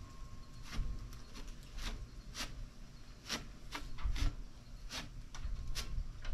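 A cloth rag rubbed and wiped along a rusty 2-inch square steel tube: a series of short, irregular scuffs.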